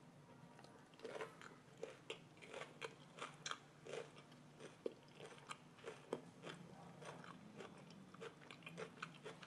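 Someone chewing crunchy raw-cabbage rice-paper rolls: a faint, irregular run of crisp crunches and bites, about two or three a second.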